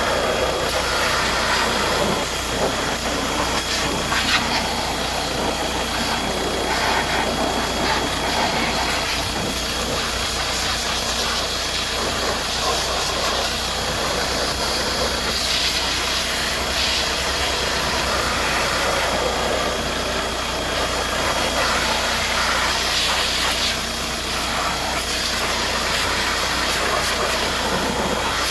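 Kärcher pressure-washer jet hissing steadily as it sprays cold water over a car engine that is idling from a cold start.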